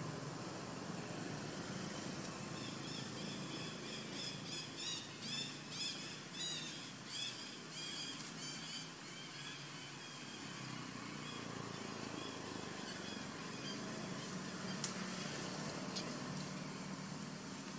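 A run of high, repeated chirping animal calls, about two a second, swelling and then fading over several seconds, over a steady low hum. Two sharp clicks come near the end.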